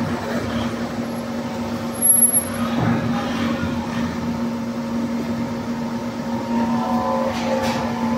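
Steady mechanical hum of running machinery, with a brief louder noise about two seconds in and a higher whine joining near the end.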